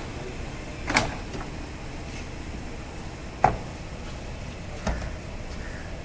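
Plastic retaining clips of a Skoda Fabia's door trim panel snapping loose as the panel is pulled off the door: three sharp pops a second or two apart, the middle one the loudest.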